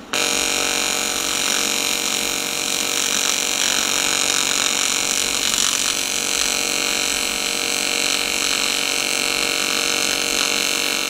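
AC TIG welding arc on cast aluminum from an Everlast PowerTIG 200 DV: a steady, even buzz that starts abruptly as the arc strikes and cuts off near the end.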